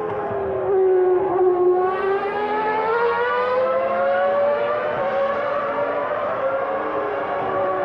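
Formula One race car engine at high revs. Its pitch dips briefly, then climbs slowly and steadily as the car accelerates.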